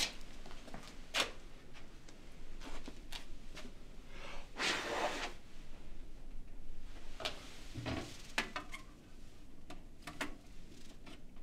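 Quiet handling sounds in a small room: scattered clicks and knocks, a brief scrape about four and a half seconds in, and a dull thump near eight seconds. Near the end a wooden drawer is being rummaged through.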